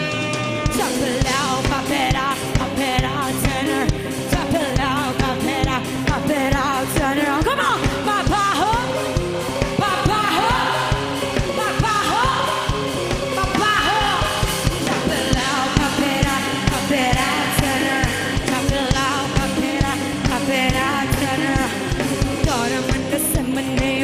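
Live pop-rock band playing a song with drum kit, electric guitars, bass and keyboard, a woman singing into a microphone over a steady drum beat.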